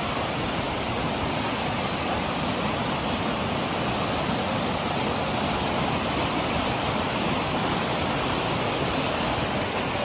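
A river rushing, a steady, unbroken sound of flowing water.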